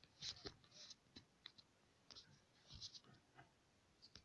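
Near silence: room tone with a few faint soft clicks and short hisses scattered through it.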